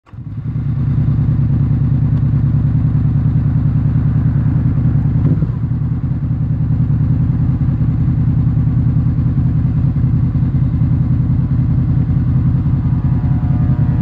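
Honda VFR800F's V4 VTEC engine idling steadily through an SC Project slip-on exhaust, with a low, even, throbbing beat.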